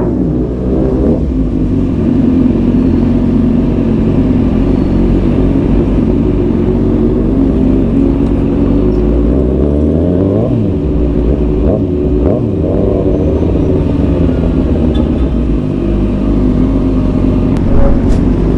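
Kawasaki ZX-6R 636 inline-four with an Arrow exhaust running under way. The revs rise and fall a few times around the middle.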